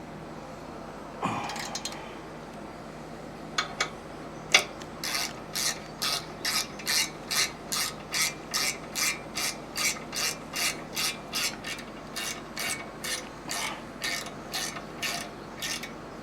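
Hand ratchet wrench worked in quick, even back-and-forth strokes, about two to three clicking strokes a second, after a few scattered clicks and a knock.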